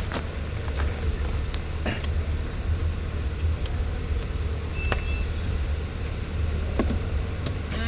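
Mercedes-Benz SLK 350's engine idling with a steady low rumble, with scattered sharp clicks and a short two-tone electronic beep about five seconds in.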